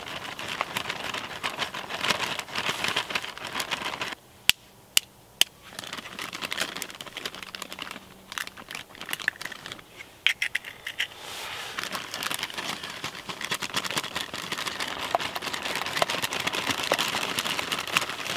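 Plastic zip-lock bag crinkling and rustling as it is handled and squeezed to mix pancake batter. About four seconds in, in a brief lull, a knife blade raps an eggshell three times, sharp taps to crack the egg. The bag crinkling then resumes.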